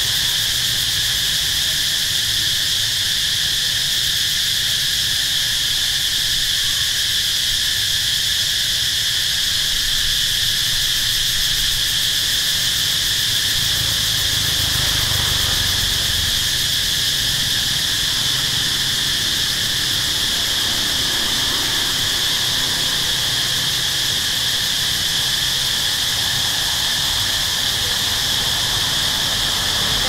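A dense chorus of insects giving a steady, high-pitched buzzing drone that never breaks, over a faint low rumble.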